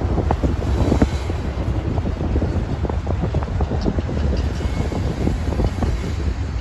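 Wind buffeting the microphone with constant crackling, over the low rumble of GE diesel locomotives (two C44-9Ws and an ES44C4) hauling a freight train past.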